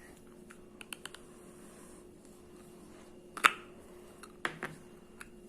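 Lid of a slime container being worked at with the fingers: a few small clicks, then one sharp loud snap about three and a half seconds in and two lighter clicks after it, as the tight lid resists opening.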